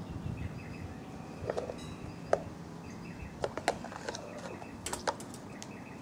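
Scattered sharp taps and clicks of birds' beaks and claws on a glass tabletop, with faint bird calls in the background.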